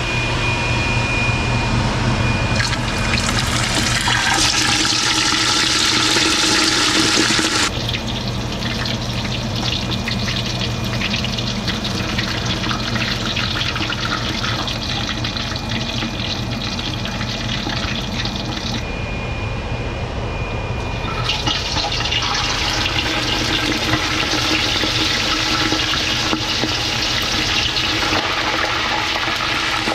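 Whole snapper deep-frying in hot oil: a steady, loud sizzle and bubbling. It is brighter and louder for the first eight seconds or so as the fish goes in, then changes abruptly to a calmer sizzle, picking up again about twenty-one seconds in.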